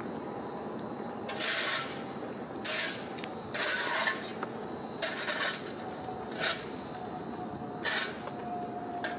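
A series of short scraping hisses, about one every second and a half, some longer and some very brief, over a steady background hum of the city.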